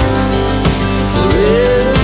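Background pop song with steady accompaniment; near the end a sung note slides up and is held.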